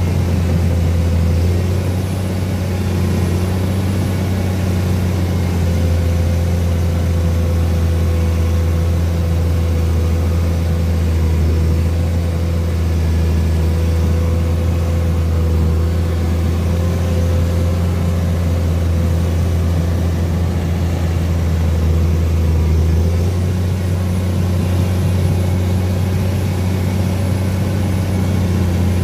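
Komatsu PC210 excavator's diesel engine running steadily under load, close at hand, as it tows a mired truck on a strap through mud.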